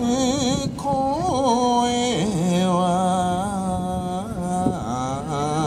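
One voice singing a slow Japanese folk song (min'yō) for a kasa odori hat dance, holding long notes with a wavering vibrato and sliding ornamental turns between them.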